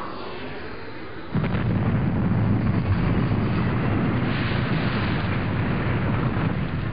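A hissing aircraft noise cut off about a second in by a sudden deep blast that turns into a loud, continuous rumble, like an explosion or a rocket or jet blast.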